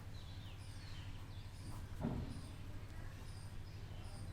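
Small birds chirping: short falling chirps repeated about once a second, over a steady low hum, with a soft thump about two seconds in.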